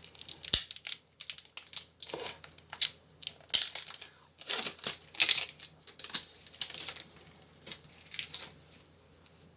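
Foil wrapper of a Pokémon booster pack crinkling and tearing as it is opened, in irregular rustles that thin out near the end.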